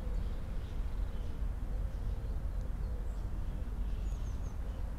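Outdoor park ambience: a steady low rumble with faint bird chirps, including a quick run of three high chirps about four seconds in.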